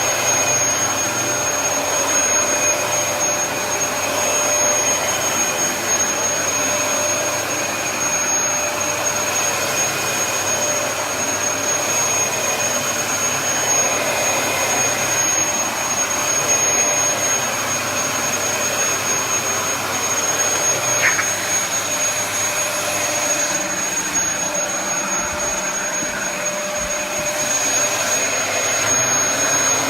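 Dyson DC33 upright vacuum cleaner running steadily, a constant rush of air with a thin, steady high-pitched whine over it.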